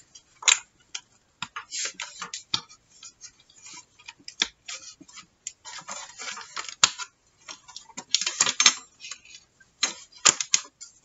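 Metal book rings being snapped open and card pages slid off them, with paper handling: a string of irregular small clicks and rustles.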